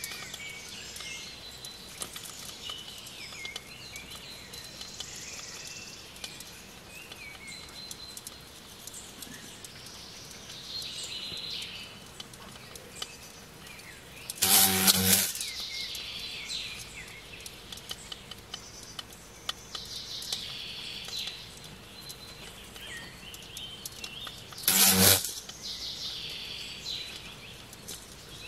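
Birds chirping steadily in the background. Twice, about halfway through and near the end, there is a short loud buzz lasting under a second.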